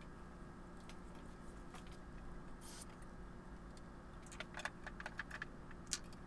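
Cast iron treadle sewing-machine frames and a wooden spacer block being handled and pushed together: a brief scrape a bit under three seconds in, then a cluster of light metallic clicks and taps from about four seconds on, over a steady low hum.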